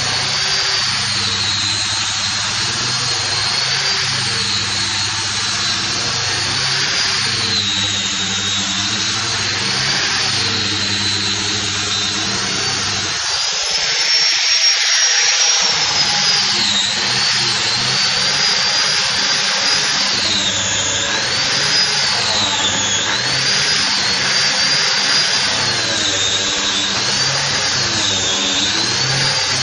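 Electric hand grinder fitted with a sanding disc, running with a steady high whine and a rough hiss as it sands wood. The whine dips and recovers again and again as the disc is pressed into the wood and eased off, most often in the second half.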